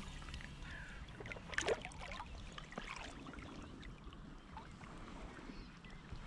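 Water sloshing and dripping around hands releasing an asp, with a brief louder splash about a second and a half in as the fish kicks free, then soft lapping water.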